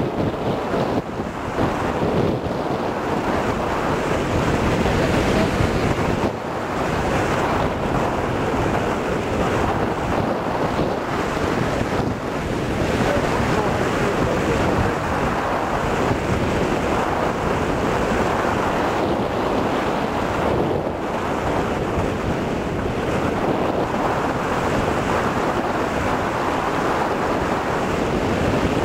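Steady rushing wind noise: the airstream of a hang glider in flight buffeting the microphone of a camcorder taped to its control bar.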